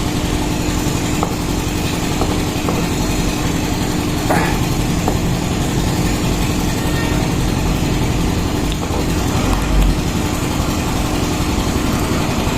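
Steady background noise from outside: a low engine-like rumble under a constant hum, with a few faint clicks.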